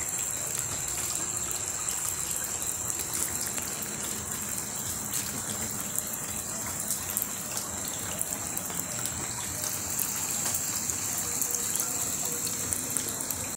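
Muddy floodwater from heavy rain gushing steadily along a street and into a house.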